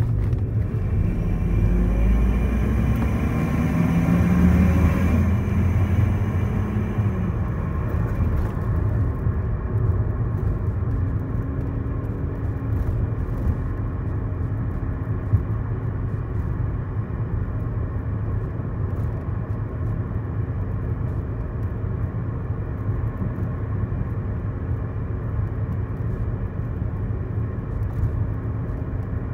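First-generation Lexus IS300's 3.0-litre straight-six, running through a Flowmaster resonator and the stock muffler, driving on surface streets. It pulls with engine pitch rising, then eases off in the first several seconds, and settles into a steady low cruising drone.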